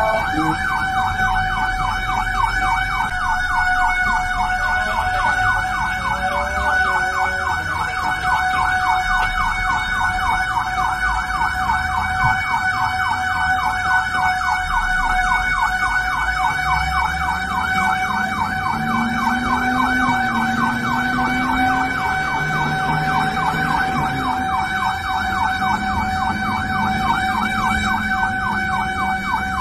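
Electronic emergency-vehicle siren in a fast, steady warble, sweeping up and down several times a second without a break.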